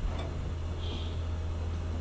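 A gas burner running steadily on high flame under a large cooking pan, giving a low, even rumble. A metal spoon scrapes and clicks briefly in the pan as potatoes are mashed into the tomato masala.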